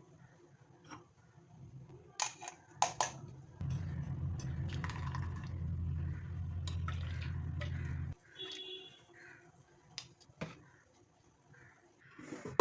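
Kitchen utensils clinking, with a few sharp clicks. Then a steady low hum runs for about four seconds, starting and stopping suddenly, with more light clinks after it.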